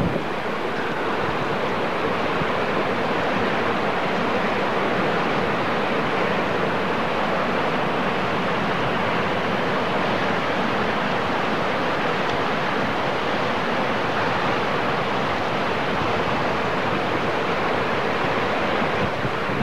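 Steady rushing roar of a large waterfall, an even wash of falling water that neither rises nor falls.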